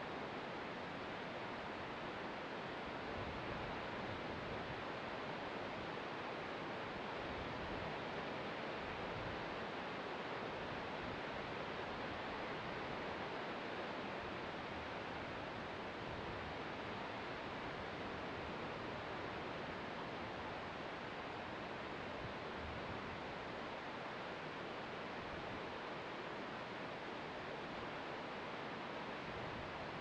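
Distant ocean surf heard from a clifftop: a steady, even wash of noise with no single wave breaks standing out.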